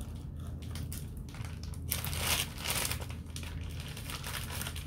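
Grey plastic courier mailer bag being handled and crinkled, its rustling loudest about two seconds in.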